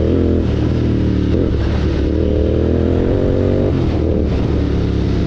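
Royal Enfield Continental GT 650's parallel-twin engine through a Red Rooster Stellar exhaust with its dB killer removed, under way. The exhaust note climbs in pitch in several pulls and drops back sharply between them, once near the start and again a little before four seconds in.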